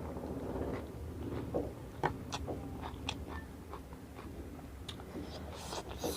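A person chewing and biting into spicy chatpate, the Nepali puffed-rice snack, with irregular small crunches and wet mouth clicks.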